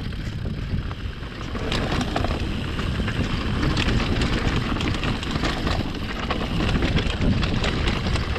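Mountain bike rolling down a rough grassy singletrack, with wind rumbling on the camera microphone. Over it comes a rapid run of knocks and rattles from the bike jolting over bumps and stones, busiest from about two seconds in.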